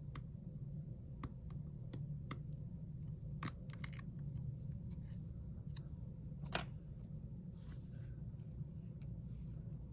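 Scattered small, sharp clicks and a few brief scrapes of hand tools working on an opened iPhone 8 Plus as its battery is being disconnected, over a steady low hum.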